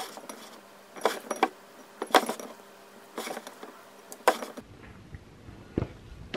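Hands stretching and folding sourdough in a ceramic bowl: about five sharp clinks and knocks against the bowl, roughly one a second, then a dull thump near the end as the bowl is covered with a tea towel.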